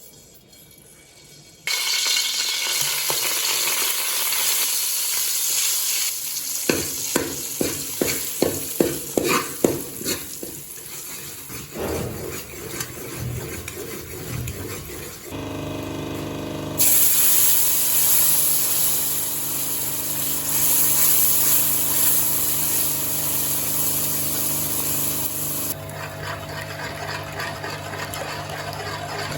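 Food sizzling and frying in a hot pan, with a run of quick stirring strokes from a utensil against the pan in the middle and a steady hum under the sizzle in the later part.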